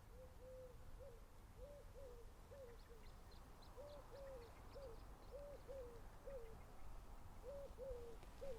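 A dove cooing faintly: a run of short coos in twos and threes, each note dropping in pitch at its end, repeated every second or so. Faint high chirps of a small bird come in about three seconds in.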